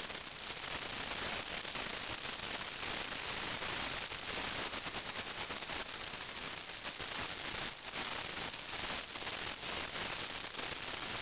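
Steady crackling static hiss, even in level, with no distinct events standing out.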